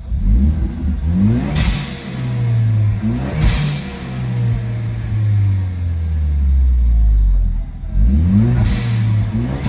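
Car engine revving and accelerating, its pitch climbing several times with a short rush of noise after each climb, together with the whining noise the owner is recording.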